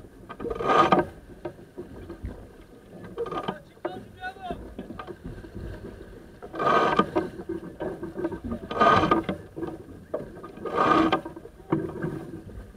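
Sailboat under way: water rushing and splashing along the hull in surges every two seconds or so.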